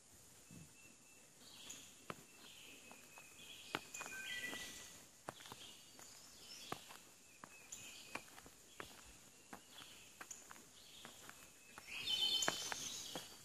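Hiking shoes stepping along the bark of a fallen log, a string of light taps and scuffs. Birds sing over the steps in short chirping phrases, loudest near the end.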